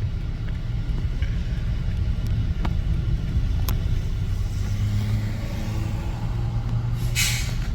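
A car driving, with a steady low engine and road rumble, a couple of faint clicks, and a short burst of hiss near the end.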